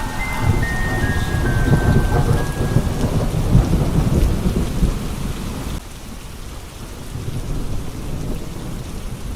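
Steady rain with a long, heavy rumble of thunder that ends suddenly about six seconds in, leaving the rain alone. A few high chime notes fade out during the first couple of seconds.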